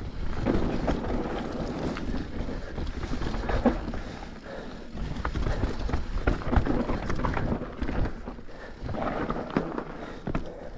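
Mountain bike riding down a dry dirt downhill trail: tyres rumbling over dirt and roots, with the bike rattling and knocking irregularly over bumps. Wind rushes over the chest-mounted microphone.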